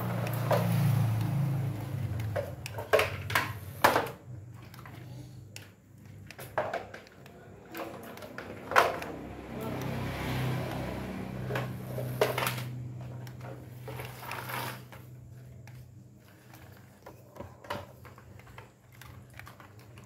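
Small electric motor of a toy remote-control car whirring in two stretches, with sharp plastic knocks and clacks of toy vehicles on a tiled floor.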